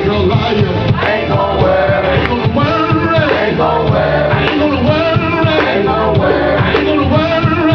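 Live gospel music: male gospel singers with band accompaniment over a steady beat.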